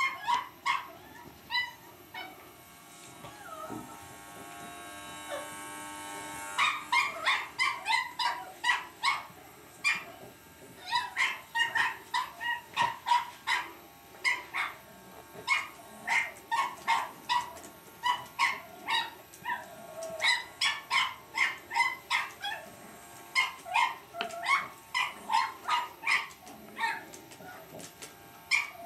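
Cavalier King Charles spaniel puppy yapping and barking at an electric shaver, short yaps several a second in quick runs. The shaver buzzes steadily in the first few seconds, growing louder, before the barking takes over about six seconds in.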